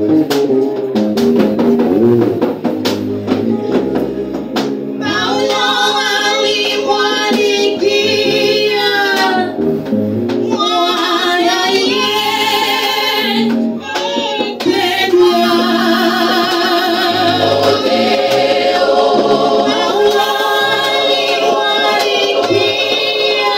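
Women's church choir singing a gospel song, led by a singer on a hand microphone, over instrumental accompaniment. The accompaniment plays alone at first; the voices come in about five seconds in and carry on with brief breaks.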